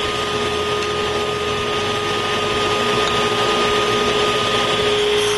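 A woodworking power tool's motor running steadily, with a constant whine over even noise and no change in pitch.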